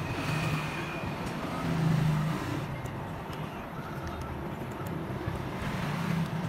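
Low background rumble of passing motor traffic, swelling briefly about two seconds in, with a few faint clicks.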